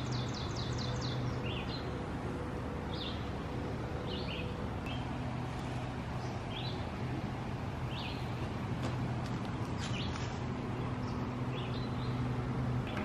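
Wild songbirds calling: a fast run of high notes in the first second, then short chirps about once a second, over a steady background hiss and a low hum.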